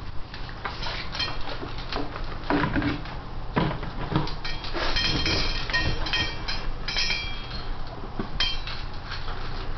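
Dogs eating dry food from their bowls: irregular clinks, knocks and clatter of the bowls, with a few brief ringing clinks about halfway through and again near the end.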